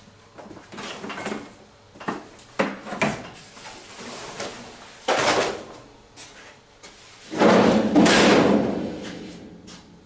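Irregular sheet-metal clanks and scrapes from a cut-loose old Ford F-100 cab roof being worked free, with a long rumbling metal noise about seven seconds in that fades over a couple of seconds.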